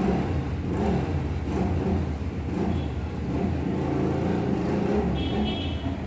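A steady low rumble that sounds like a motor vehicle's engine running.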